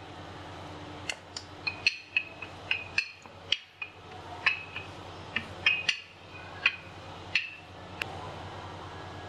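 Wooden rolling pin rolling out paratha dough on a hard worktop: a run of irregular sharp clicks and knocks as the pin rocks and strikes the surface, over a steady low hum.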